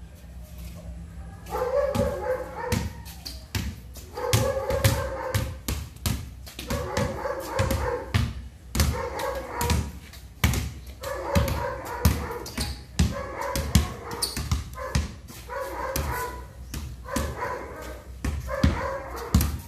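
Basketball dribbled on concrete, a steady run of sharp bounces. From a couple of seconds in, a pitched, whining call about a second long repeats over and over between the bounces.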